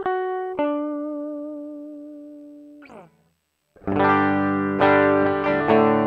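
Dry electric guitar part played back from an HX Stomp looper: a single held note that wavers slightly as it fades. After a short break, full chords are strummed about once a second from about four seconds in.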